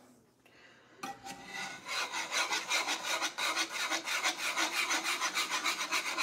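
Thick sausage gravy being stirred in its pan, a utensil scraping the pan bottom in quick, even strokes that start about a second in.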